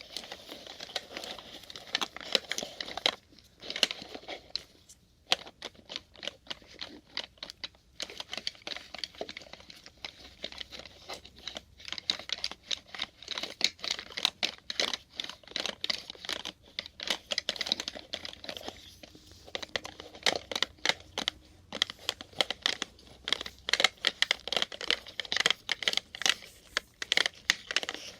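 Plastic syringes rolled together in the hands and knocking against each other: a dense, irregular clatter of small clicks, with a few short pauses.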